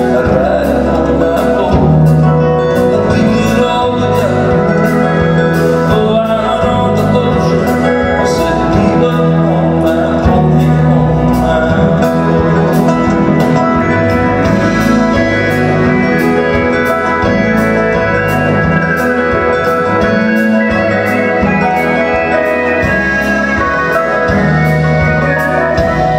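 Live band playing an instrumental passage of a country-folk song with a steady beat.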